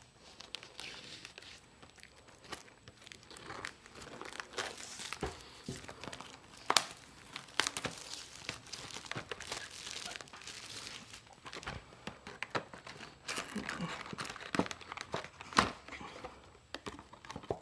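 Plastic wrapping on a trading-card booster box crinkling and tearing as the box and its packs are opened, with scattered sharp clicks and taps.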